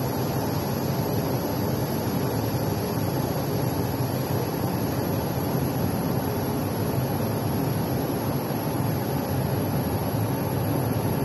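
Welding fume extractor's fan running steadily: an even rush of air with a faint, steady high-pitched whine above it.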